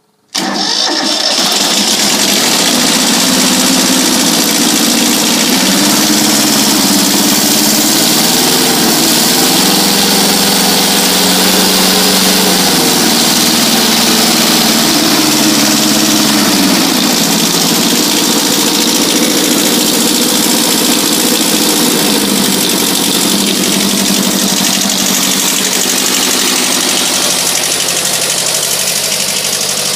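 Kubota B6000 compact tractor's diesel engine starting warm, catching almost at once with little glow-plug time, then running steadily at slightly raised throttle. Its note shifts up and down a few times in the middle.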